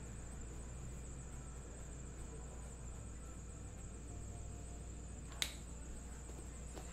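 Quiet room tone with a steady low hum, broken by a single sharp click about five and a half seconds in.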